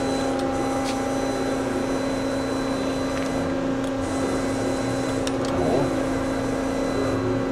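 1983 Matsuura MC-760-V2 CNC vertical machining center running with a steady hum while its Z axis is jogged. The ball screw and axis motor are quiet, with only a few faint clicks.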